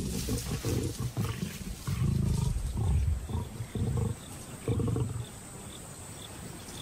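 Lions growling and snarling in a squabble over a carcass as a young male pulls rank on the lionesses feeding there: a run of about five short, low, rough growls that stop about five seconds in.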